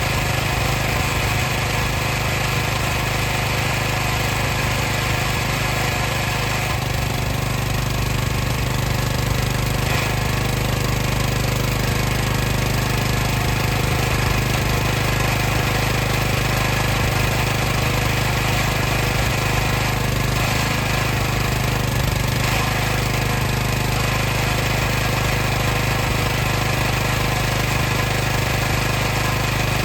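Water pump running steadily with a constant low hum.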